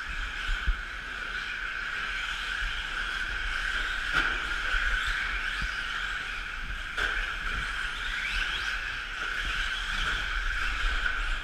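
A pack of electric 4x4 short-course RC trucks racing on a dirt track, their motors making a steady high whine, with one motor's pitch rising near eight seconds in.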